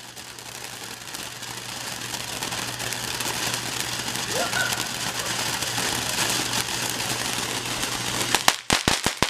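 A firework crackling and hissing, growing louder over about eight seconds, then a few sharp cracks near the end.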